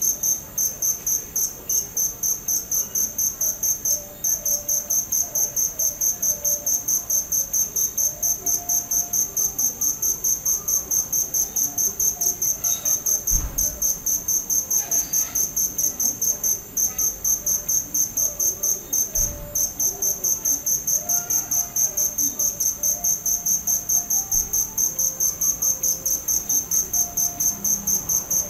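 Crickets chirping continuously in a fast, even, high-pitched pulse of several chirps a second.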